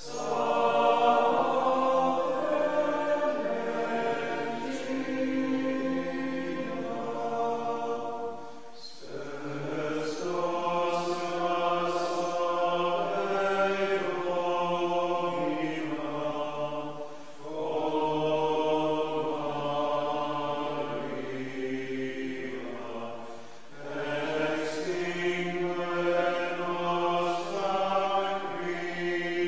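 Voices singing a slow chant, holding long notes in phrases of several seconds, with three short breaks for breath between phrases.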